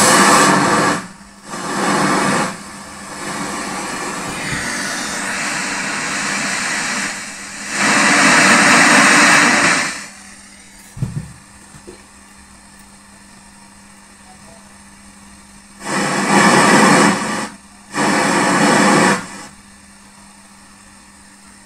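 Speaker playing FM radio static from an untuned FM player module, loud hiss that switches on and off in bursts: the loudest lasts about two seconds near the middle, and two shorter bursts come near the end. A steady low hum from the amplifier runs underneath, and there is a single click about halfway through.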